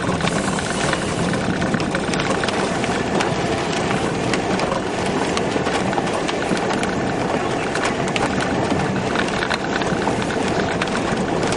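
Peugeot car driving along a rough, wet dirt track, heard from inside the cabin: steady engine and tyre noise with many small knocks and rattles as it bumps over the uneven surface.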